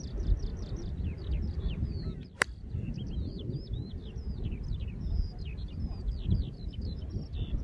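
A golf club strikes the ball once, a sharp click about two and a half seconds in. Gusty wind buffets the microphone throughout, and birds chirp continuously high above it.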